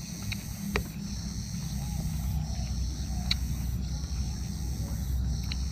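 Close-up chewing of a mouthful of fried tempeh and raw vegetables: a low, uneven mouth rumble with a few sharp crunches. Behind it is a steady high insect buzz.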